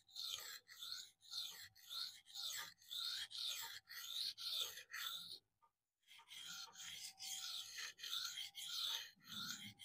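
Steel knife blade being stroked back and forth across a Venev Phoenix diamond sharpening stone in freehand sharpening: a quick run of short, hissing rasps, about three a second, pausing briefly about halfway through.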